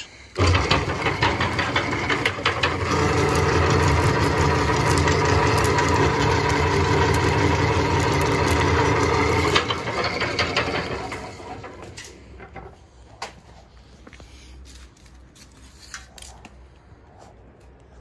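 Electric motor driving the geared rollers of a homemade wire stripper, converted from a metal roller-shear-brake machine, as a copper wire is fed through and grooved. It runs with a steady hum and whir, starting about half a second in and winding down around eleven seconds in, followed by a few faint clicks.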